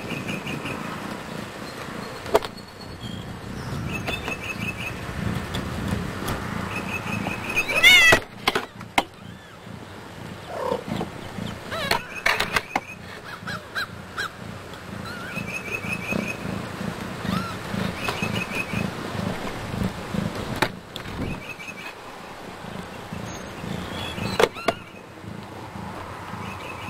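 A mother cat purring, a low even pulsing, close by among her newborn kittens, with one loud high rising mew about eight seconds in. Short trills of rapid chirps recur in the background every few seconds, and there are a few sharp knocks.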